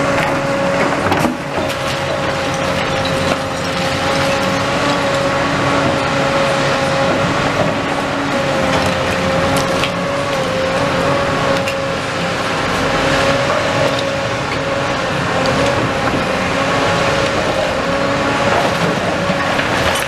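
Hydraulic demolition excavator running under load with a steady, slightly wavering whine, its sorting grab tearing at a brick wall, with scattered knocks and crunches of falling brick and rubble.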